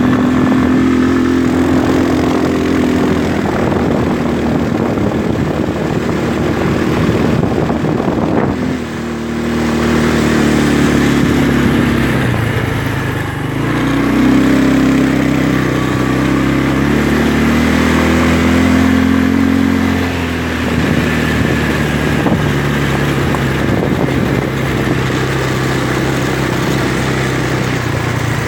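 ATV engine running while being ridden, its pitch rising and falling as the throttle is opened and eased off, with dips about a third of the way in and again about two-thirds through.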